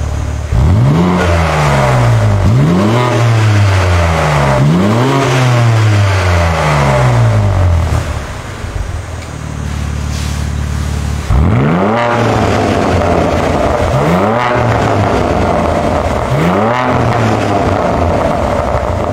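BMW G82 M4 Competition's S58 twin-turbo inline-six, breathing through a Fi Exhaust valvetronic catback, blipped sharply three times with the exhaust valves closed, then idling for a few seconds. From about eleven seconds in, with the valves open, the idle is louder and the engine is blipped three more times.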